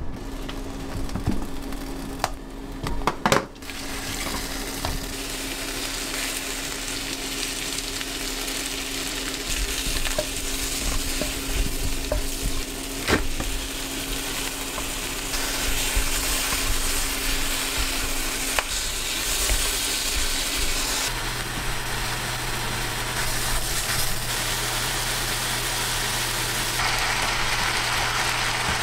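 Sliced gourd, green onions and frozen beef sizzling as they are stir-fried in a frying pan, with a wooden spatula scraping and tapping against the pan. A few sharp knocks come in the first few seconds as the vegetables go in.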